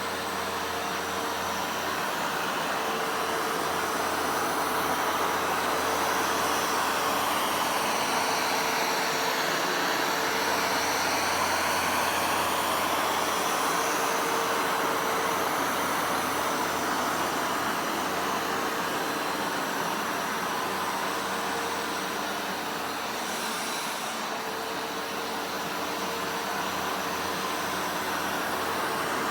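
Vacuum cleaner running continuously, a steady motor hum under a rushing air noise that swells and eases slowly as it is pushed about, dipping a little a few seconds before the end.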